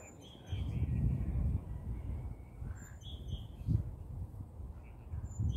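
Wind gusting on the microphone in low, uneven bursts, strongest from about half a second to a second and a half in, with birds calling in the background about three times.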